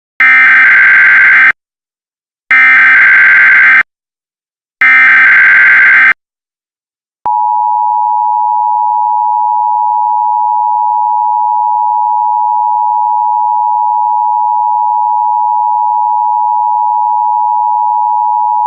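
Emergency Alert System tones: three loud, equal bursts of SAME header data, each about a second and a half long, then the steady two-tone attention signal begins about seven seconds in. Together they signal that a spoken emergency alert message is about to follow.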